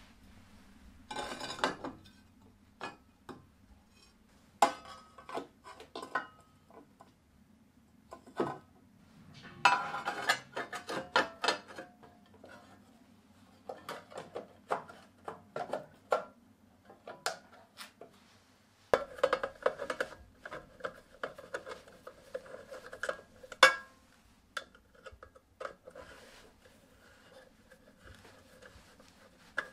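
Sheet-steel housing and metal fittings clinking, knocking and scraping as they are handled and screwed together with hand tools. A stretch of denser rattling with ringing sheet metal comes about two-thirds of the way in.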